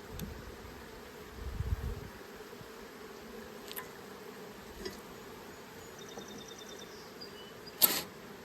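Honeybees buzzing steadily around an open hive, with one sharp knock near the end.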